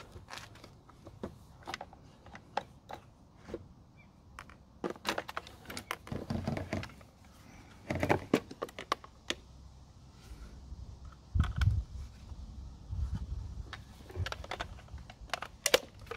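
Irregular plastic clicks, taps and knocks from hands handling a plastic weatherproof cable box, an extension socket and plugs, with a few dull low thumps about two-thirds of the way through.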